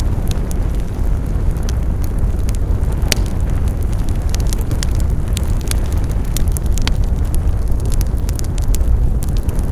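Wood fire burning with a steady low rumble and irregular sharp crackles and pops of burning wood, one louder pop about three seconds in.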